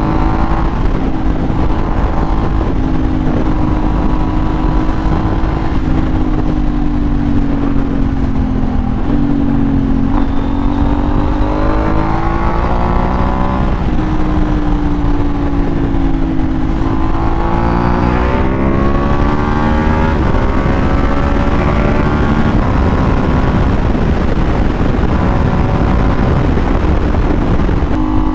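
KTM Duke motorcycle engine running at highway speed, heard from the rider's seat under heavy wind rush. The engine note sags and rises as the throttle is eased and opened, climbing sharply about two-thirds of the way through.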